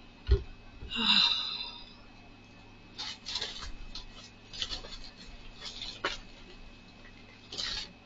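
Packaging being handled: a thump just after the start, a brief breathy sound about a second in, then on-and-off rustling and crinkling of plastic and cardboard as a boxed item is picked out.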